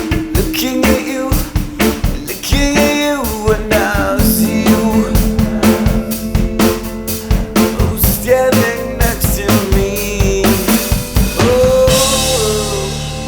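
Studio-recorded rock song: a full drum-kit beat with snare and bass drum under sustained notes and a sliding melodic lead line. Near the end the drum hits stop and a cymbal wash rings out and fades.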